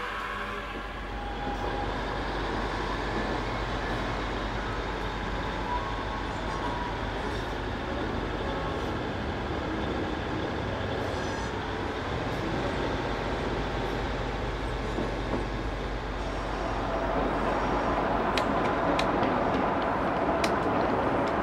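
00 gauge model trains running on the layout track: a steady rumble of wheels and motors with a low hum, growing louder towards the end with a few sharp clicks as a train comes closer.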